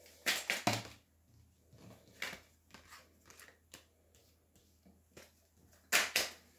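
Tarot cards being drawn and laid down on a table: sharp card snaps and slaps in a cluster near the start, a few light clicks in the middle, and another cluster near the end.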